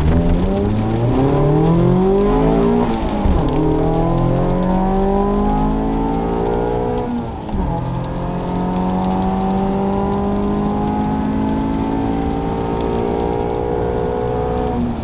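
ND Mazda Miata's four-cylinder engine breathing through Hooker headers and an HKS exhaust, accelerating up through the gears. The pitch climbs, drops at an upshift about three seconds in, climbs again, drops at a second upshift about seven and a half seconds in, then holds nearly steady, rising slowly.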